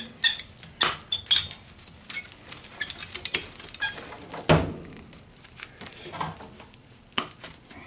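Wire cutters snipping through the wire leads of a computer power supply board: sharp clicks at uneven intervals, the loudest about four and a half seconds in.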